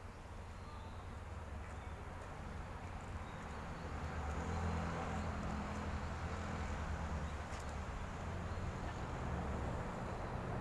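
Outdoor background noise: a steady low rumble with a faint hiss, growing louder about four seconds in.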